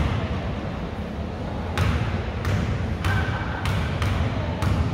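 A basketball being dribbled on a gym floor: a run of sharp bounces a little over half a second apart, starting about two seconds in, over a steady low hum in the hall.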